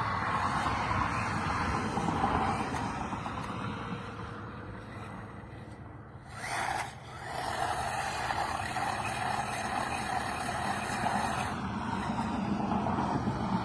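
A HAIBOXING 18859 1:18-scale RC monster truck being driven: its electric motor and tyres make a steady whirring that fades for a couple of seconds, then returns after a short loud noise a little past the middle.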